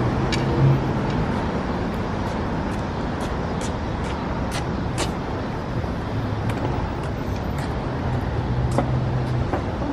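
Steady road traffic rumble with a vehicle engine humming low nearby, with scattered faint ticks over it.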